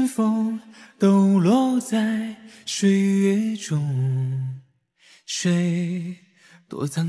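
Background music: a solo singing voice holding long, slow notes, with short breaks between phrases and a brief near-silent gap near the middle.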